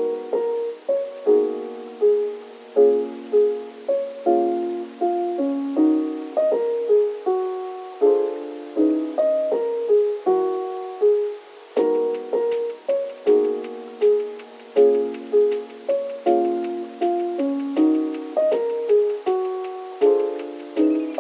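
Background music: a mellow piano-like keyboard playing chords and a melody in short decaying notes, with light ticking percussion joining about halfway.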